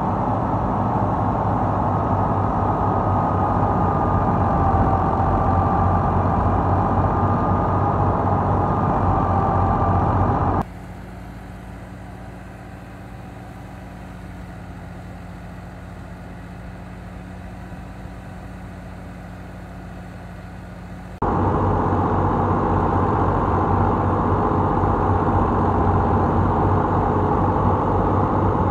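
New Holland Ghazi diesel tractor running a thresher off its PTO shaft: a steady, dense din of engine and threshing drum. About ten seconds in, it cuts abruptly to a quieter, steadier hum from a Massey Ferguson 360 driving another thresher, then cuts back to the louder Ghazi about ten seconds later.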